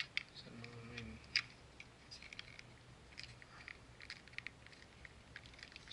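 Hard plastic parts of a Transformers action figure clicking and rubbing together as an add-on armour piece is fitted over the figure's leg: scattered light clicks, the loudest about one and a half seconds in.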